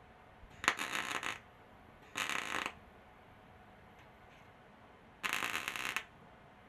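MIG welder laying three short tack welds, each a crackling burst of under a second, on a patch panel in the rust-rotted lower box side of a 2006 Ford F150. The surrounding sheet metal is so rotten that the welds burn big holes.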